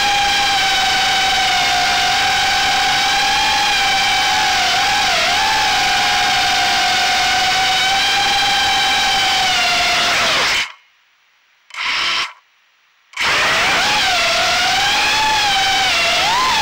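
Armattan Gecko FPV quadcopter's brushless motors and propellers whining steadily, the pitch wavering up and down with the throttle. Around the middle the sound cuts out to near silence twice, each time for about a second, with a short burst of whine between.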